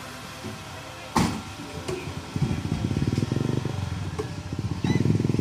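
Flatbed truck's engine running with a fast, even pulsing, growing louder about two seconds in. One sharp knock comes about a second in.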